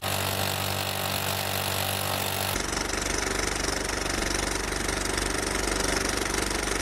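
Steady rumbling, engine-like noise with a faint low hum, a sound effect in an app-made video intro; a deeper low rumble joins about two and a half seconds in.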